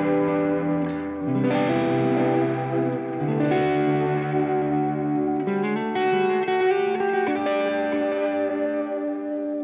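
Electric guitar played through a T-Rex Replicator D'luxe real-tape echo, its sustained chords changing every second or two and washed with tape delay.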